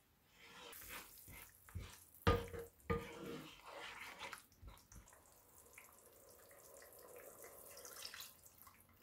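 Wine-and-vinegar sauce simmering as it reduces in a pot, stirred with a wooden spoon that knocks against the pot a few times. The loudest knock comes about two seconds in.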